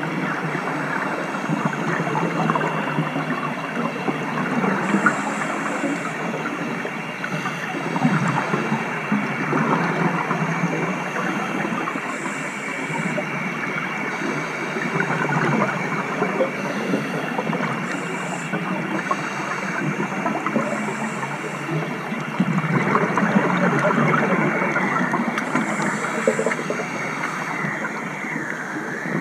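Underwater noise heard through a dive camera's housing: a steady crackling, bubbling wash from scuba divers' exhaled breath. A short, faint hiss comes back every several seconds.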